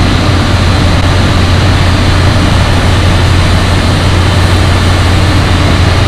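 Building mechanical-room machinery and large ventilation fans running: a loud, steady drone with a strong low hum.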